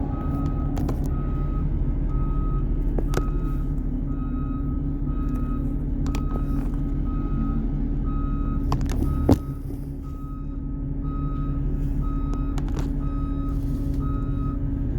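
Backup alarm of a 2009 Blue Bird rear-engine CNG school bus beeping steadily as it reverses, about one and a half beeps a second, over the engine's low steady running. Knocks of a hand touching the camera, the loudest a sharp one about nine seconds in.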